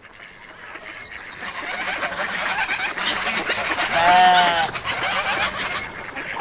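Farmyard ambience fading in: many birds chirping and chattering, with one loud, drawn-out farm-animal call, a goat-like bleat, about four seconds in.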